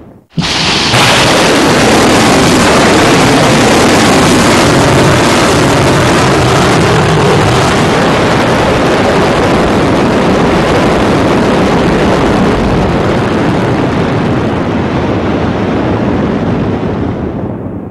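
Solid-fuel rocket motor of a Pukguksong submarine-launched ballistic missile burning as the missile climbs: a loud, steady roar that starts suddenly just after the beginning and cuts off near the end.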